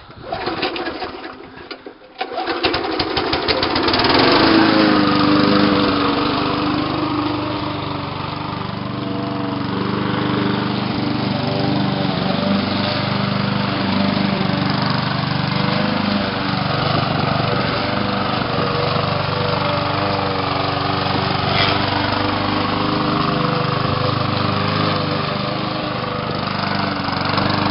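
Briggs & Stratton lawn mower engine started with a pull, catching about two seconds in and quickly revving up, then running steadily with its pitch wavering slightly.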